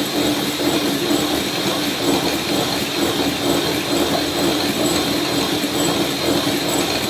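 Electric hand mixer running steadily at speed, its beaters whipping egg whites in a glass bowl to stiff peaks, with a steady motor hum and a thin high whine.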